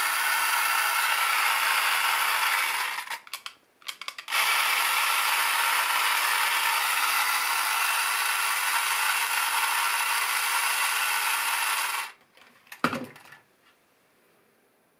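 Battery-powered 1950s Nomura Radar Robot tin toy's electric motor and gear train running its walking mechanism, a steady mechanical whirr with a ratcheting clatter. It cuts out about three seconds in with a few clicks, starts again a second later, and stops for good at about twelve seconds, followed by a single sharp knock.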